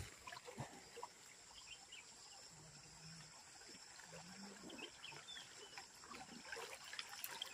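Near silence: faint ambience of a shallow flowing stream, with a few faint short calls.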